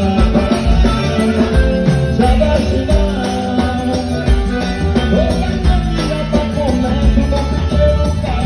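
Live forró band music playing, with jingling percussion over a pulsing bass line and melody lines.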